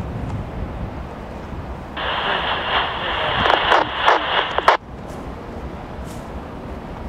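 Railroad scanner radio opening with a hissy, garbled transmission about two seconds in, lasting nearly three seconds and cutting off abruptly. A low steady rumble runs underneath.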